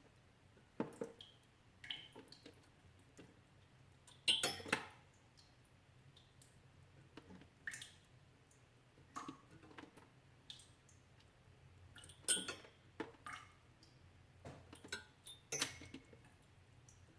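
Melting ice dripping: irregular single water drops and small wet splats at uneven intervals, the loudest a quick cluster of drips about four and a half seconds in.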